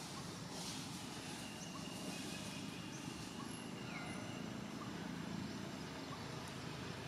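Steady outdoor ambience: a low rumble with faint, scattered short chirps and whistles over it.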